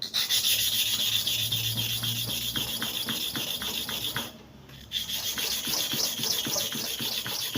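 Hair clipper blade being rubbed back and forth on a flat sharpening surface in quick, even strokes, grinding its face flat. The strokes stop briefly about four and a half seconds in, then carry on.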